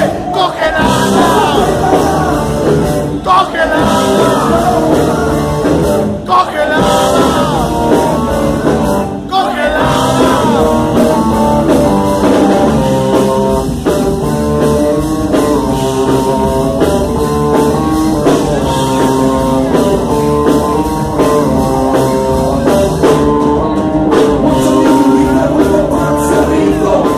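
Live rock band playing a song: a singer over electric guitars and drums, loud and continuous.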